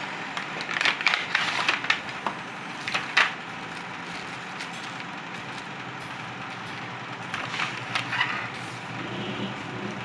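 Crackling and rustling of packaging being handled: a cardboard box opened and plastic bags and shrink-wrap crinkling in the hands, in short bursts about a second in, around three seconds in and near eight seconds, over steady background noise.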